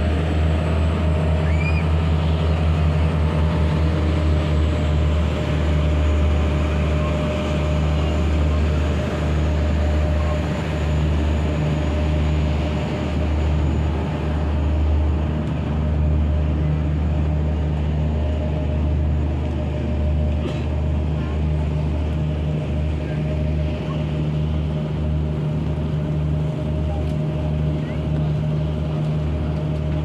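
A car ferry's engines running steadily under way: a deep, continuous drone with a steady higher hum above it, under an even rush of wind and water.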